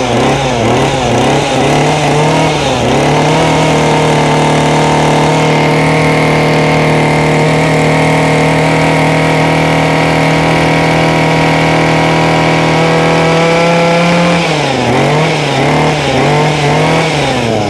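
Shindaiwa 32 cc two-stroke brush cutter engine on a test run. It is blipped up and down a few times, then held at a high steady speed for about eleven seconds. It is blipped again and drops back toward idle near the end.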